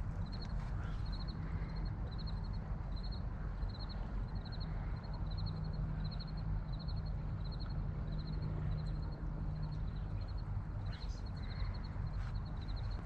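Steady rush of river water, with a small animal's high, quick chirping call repeating about one and a half times a second.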